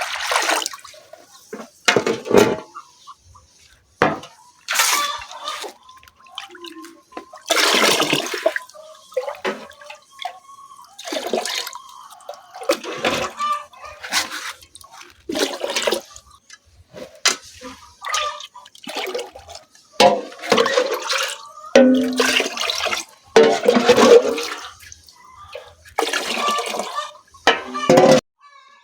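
Water splashing and pouring in short, irregular bursts, many times over.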